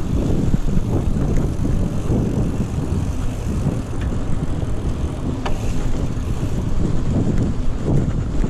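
Mountain bike riding fast over a dirt trail: a steady low rumble of tyres and wind buffeting the bike-mounted camera's microphone, with a few sharp clicks and rattles from the bike.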